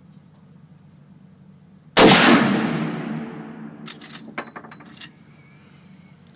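A single shot from a large-calibre rifle, a sharp crack that rings out and dies away over about two seconds. About two seconds after it comes a quick run of sharp metallic clicks.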